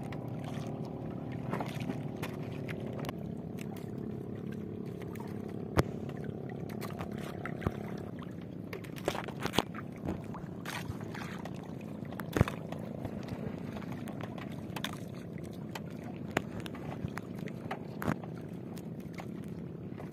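Water sloshing and dripping around a small wooden outrigger boat while a fishing line or net is hauled in over the side, with scattered sharp knocks against the hull. A faint steady hum runs underneath and stops about eight seconds in.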